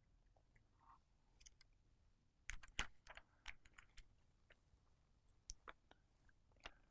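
Scattered faint clicks and light taps from handling the opened iPhone's parts during reassembly, a few sharper ones together about two and a half seconds in.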